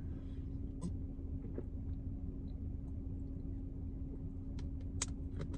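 Steady low hum inside a parked car, with a few faint clicks and crinkles from a plastic water bottle as a man drinks from it.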